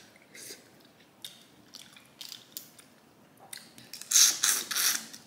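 Boiled crawfish being shelled and eaten by hand: soft crackles and clicks of the shells being peeled. About four seconds in comes a run of loud, wet sucking and smacking at the mouth.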